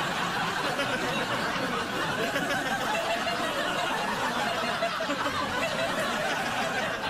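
Studio audience laughing steadily in a large crowd.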